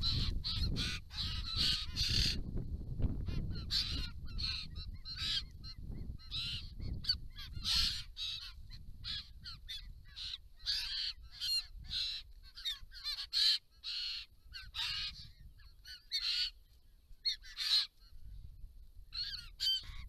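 A group of White-winged Choughs calling at close range: a fast, uneven run of short calls, several a second, with a low rumble beneath in the first half.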